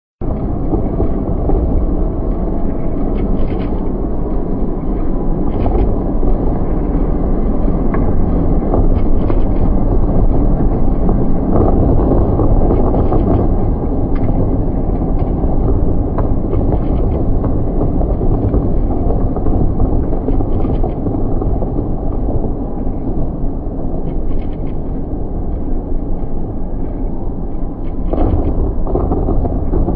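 Large fireworks display: many bursts merging into a steady low rumble, with faint crackles scattered through it.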